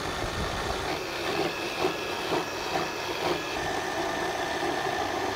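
Food processor motor running at raised speed, its blade churning cooked chickpeas into hummus, with a steady hum and a high whine. The whine drops in pitch about three and a half seconds in, as cooking water is poured into the feed tube to loosen the mix.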